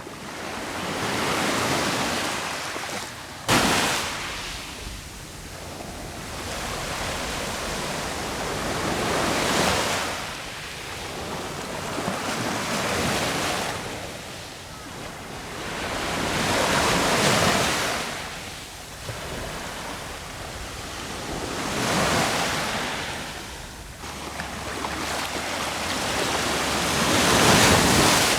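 Sea waves breaking on the shore, each wave surging up into a hiss and fading away, about every four to five seconds. A single sharp crack sounds about three and a half seconds in.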